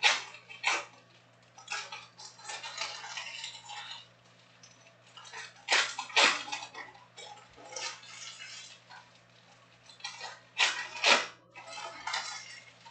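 Trading cards and plastic-wrapped card packs being handled on a table: spells of rustling and sliding, with sharp clacks in pairs at the start, about six seconds in and about eleven seconds in, as cards or stacks are set down.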